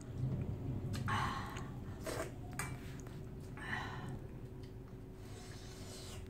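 A person eating: chewing and breathing sounds, with two breathy exhalations, one about a second in and one near four seconds, and a few light clicks of a metal spoon against the dishes.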